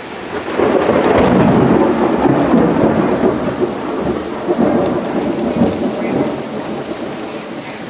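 A long roll of thunder over steady rain, swelling about half a second in and slowly dying away.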